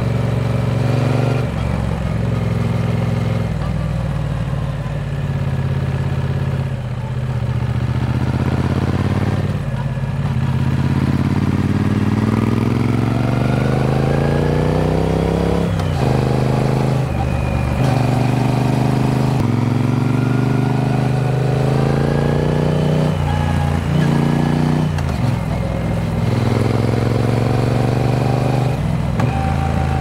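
Triumph Speed Twin 900's parallel-twin engine running while riding, its pitch climbing steadily under acceleration, the longest climb lasting several seconds, and dropping abruptly several times.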